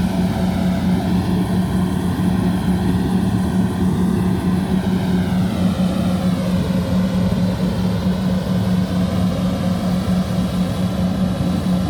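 Rice combine harvester running steadily: a loud, constant engine drone with a steady hum that does not change in pitch.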